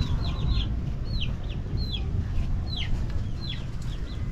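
Chicks peeping: a run of short, high chirps, each falling in pitch, spaced irregularly, over a steady low rumble.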